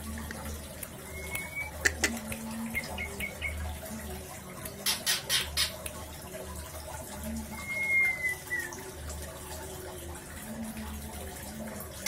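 A white-rumped shama (murai batu) gives two thin whistled calls, a short one about a second in and a longer falling one about two-thirds of the way through. Short hissing rushes and a steady low hum run underneath.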